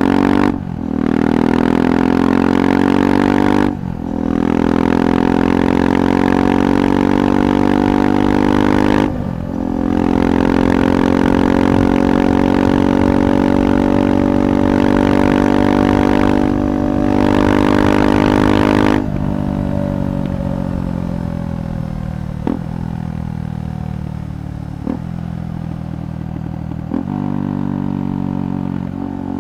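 KTM 390 Adventure's single-cylinder engine through a Red Rooster aftermarket exhaust, accelerating hard through several upshifts, each a brief dip followed by a lower pitch that climbs again. About two-thirds through the throttle closes and the engine winds down, with three short blips near the end.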